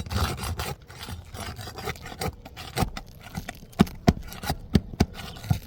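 Hands-on work on roof shingles: about a second of rustling and scraping, then a run of sharp knocks at uneven spacing that come faster toward the end.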